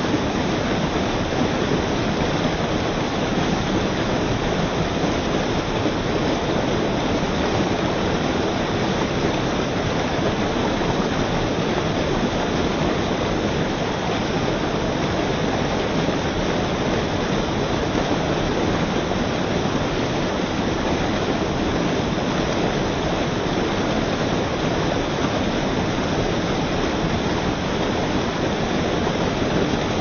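Mill stream whitewater rushing and pouring over rocks, a steady, loud rush of water.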